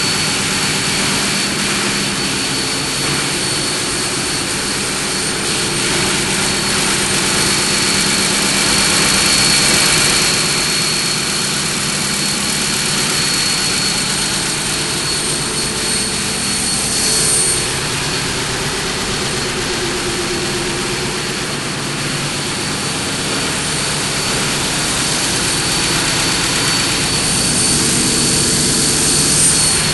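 Machinery of the double-ended car ferry ms Prins Johan Friso running steadily: a loud, even mechanical din with a constant high whine over it.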